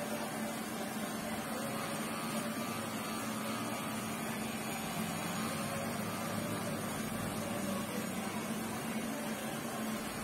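Cordless hair clipper with a No. 2 guard running steadily as it cuts short hair, a constant electric hum.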